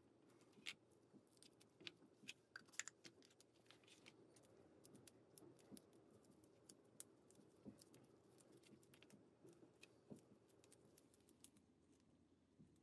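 Faint, scattered small clicks and crinkles of nitrile-gloved hands handling tape and small parts, busiest in the first few seconds, over a low steady room tone.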